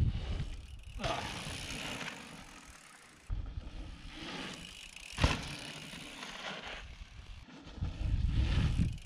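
Mountain bike riding off-road: wind rushing over the camera microphone and tyres rumbling on dirt, coming and going in several short bursts, with one sharp knock about five seconds in.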